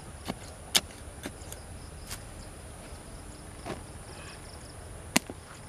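Digging in loose, dry soil around an elephant foot yam tuber: a few irregular sharp knocks and scrapes of the digging blade against earth and clods, the loudest about a second in and again near the end, over a steady high hiss.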